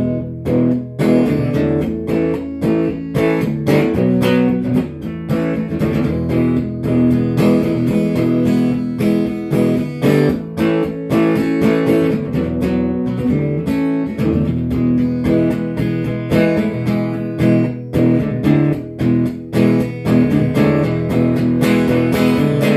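Acoustic guitar strummed in a steady rhythm, an instrumental break in a song with no singing.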